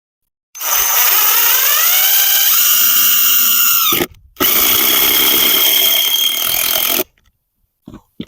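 Handheld electric power tool running in two long runs of about three seconds each, with a short break between. Its pitch sags and shifts during the first run as it works under load. A few short knocks follow near the end.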